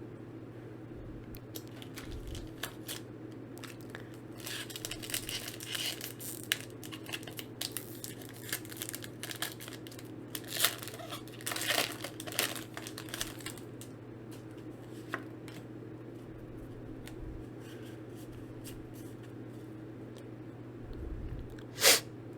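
Foil Pokémon card booster pack being torn open and its wrapper crinkled, in scattered bursts through the middle, then one sharp crinkle near the end, over a low steady hum.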